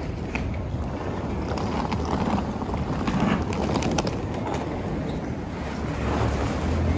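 Wheeled suitcase rolling over pavement, a steady rumble with scattered clicks, mixed with wind buffeting the phone's microphone.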